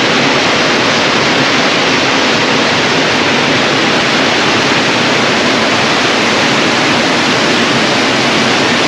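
Small waterfall cascading down a rocky stream, a steady loud rush of water.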